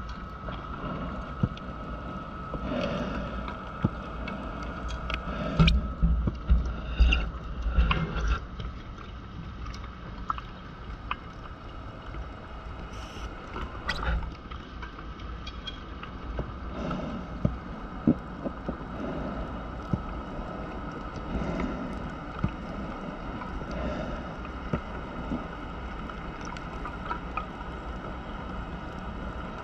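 Muffled underwater sound of a scuba diver's exhaled air bubbles gurgling in irregular bursts, loudest for a few seconds about six seconds in, over a faint steady hum.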